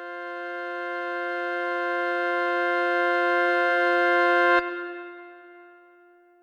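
Ambient music: one sustained organ-like chord swells steadily louder, then cuts off abruptly about three-quarters of the way in. A ringing tail fades away after the cut.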